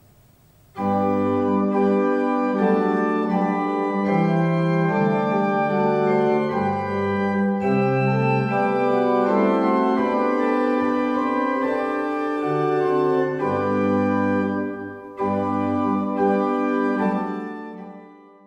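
A 1974 Klaus Becker two-manual, nine-stop pipe organ playing a chordal passage on the Hauptwerk, registered with Spitzflöte 8', Prinzipal 4' and Gemshorn 2' for a flute-toned 8' and 2'. It starts about a second in, breaks off briefly about two-thirds of the way through, and dies away near the end.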